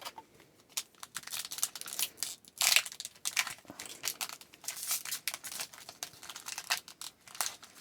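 Foil wrapper of a hockey card pack being torn open and crumpled by hand: a stream of irregular crinkles and crackles, loudest nearly three seconds in.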